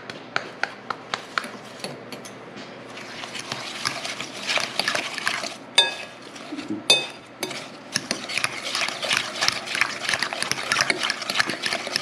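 A metal fork stirring and scraping slushy snow ice cream mixture in a mixing bowl: scattered ticks at first, then fast, steady scratchy strokes from about three seconds in, with two sharper clinks of the fork against the bowl near six and seven seconds.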